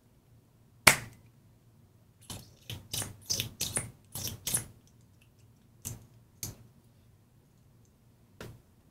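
Engineer SS-02 spring-loaded solder sucker firing on a solder joint with one sharp snap about a second in, followed by a run of lighter clicks and taps as the tools are handled, and a few single clicks later.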